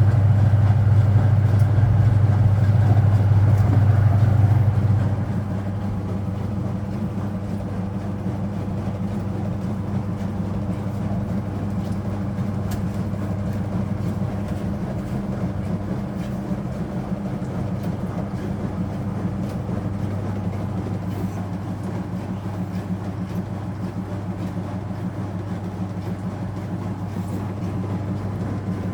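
Speed Queen top-load washing machine running with a steady motor hum, which drops in level about five seconds in and then carries on evenly.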